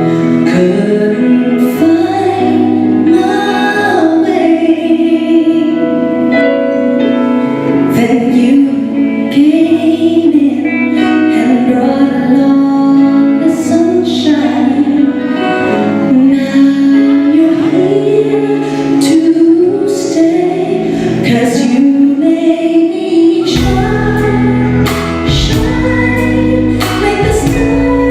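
Live band music with a singing voice carrying a slow melody. A heavy bass and drum part comes in near the end.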